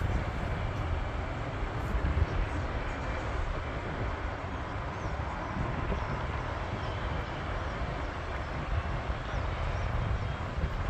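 Steady rush of distant business-jet engines as the jets taxi on the airfield, with wind rumbling on the microphone.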